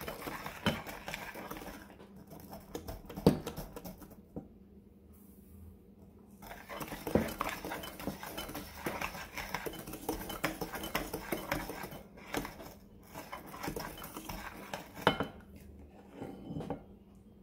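Electric hand mixer creaming butter and sugar in a glass bowl, its motor humming faintly under frequent irregular clicks of the metal beaters against the glass. The clicking eases off for a couple of seconds about four seconds in.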